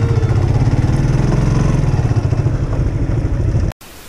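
Motorcycle engine running as the bike rides along, a steady low pulsing drone. It cuts off suddenly near the end and gives way to a much quieter even hiss of static.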